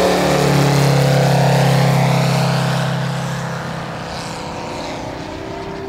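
Engine and propeller of a 40% scale SU31 aerobatic model plane running at a steady pitch as it passes low, then fading after about three seconds as it pulls up into a climb.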